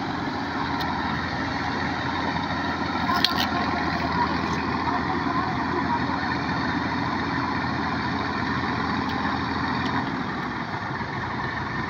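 Farm tractor's diesel engine running steadily under the listener, with one short click about three seconds in.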